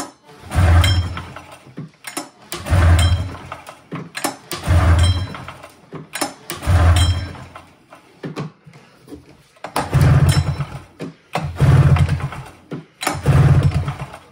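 Recoil pull-start of a Polaris Trans Sport snowmobile's two-stroke twin, pulled seven times about two seconds apart with a short rest after the fourth. Each pull turns the engine over with a low chugging but it never fires: the crankcase is full of oil.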